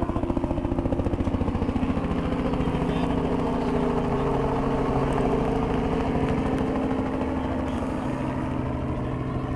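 An engine running steadily and fairly loud, with a fast, even pulsing that is strongest in the first couple of seconds and a pitch that drifts slightly.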